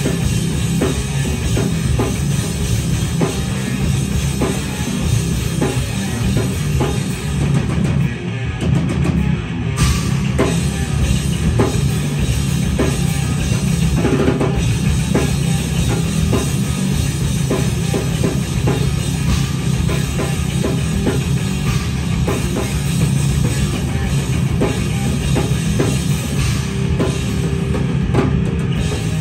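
Live heavy metal played by a band: distorted electric guitar, bass guitar and fast, dense drumming on a drum kit, loud and without a break.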